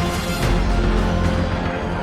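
Background music with a heavy bass and a steady drum beat.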